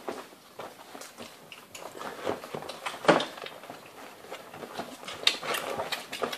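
Four-week-old Great Dane puppies suckling and jostling under their mother: irregular wet smacking and small scuffling noises, with a brief louder sound about three seconds in.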